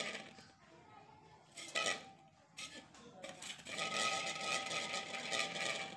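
Aluminium cooking pot handled by a toddler on a hard floor: two short knocks about two seconds in, then a couple of seconds of metallic clatter and scraping near the end.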